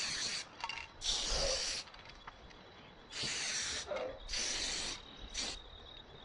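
Aerosol spray-paint can spraying in a series of bursts, about six of them, each lasting from a brief puff to nearly a second.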